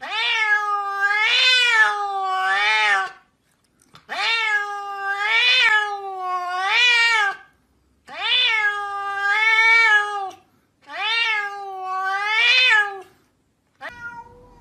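Domestic cat meowing over and over as its head is patted, in four drawn-out bouts of two to three seconds each with short breaks between. The pitch of each bout swells up and down two or three times.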